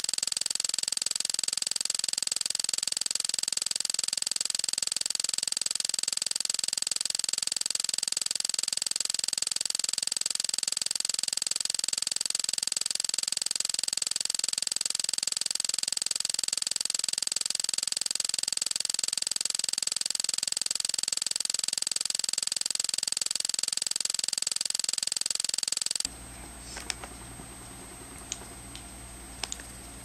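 A steady, loud hiss with high whining tones that does not change, then cuts off suddenly about four seconds before the end. After it, a few faint clicks.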